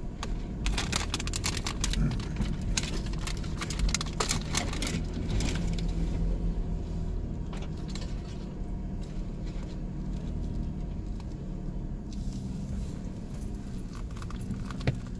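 SUV engine running under load as the vehicle climbs a rough, muddy trail, with a quick run of clicks and rattles over the first several seconds, then a steadier rumble.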